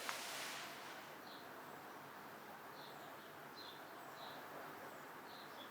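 Quiet outdoor ambience with a faint, even background hiss and small birds chirping briefly now and then.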